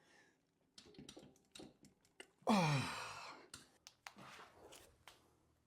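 Scattered small clicks and knocks of parts being handled, then about two and a half seconds in a loud strained grunt of effort that falls in pitch as the carburetor bank is forced onto the rubber intake manifolds, followed by a few faint clicks.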